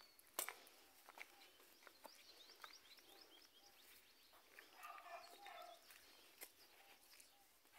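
Near silence: faint outdoor ambience with a few light clicks, a quick run of faint high chirps, and a faint distant call about five seconds in.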